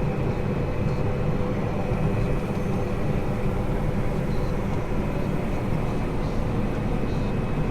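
Combine harvester running steadily while harvesting corn: a constant engine and machinery drone with a faint steady whine above it.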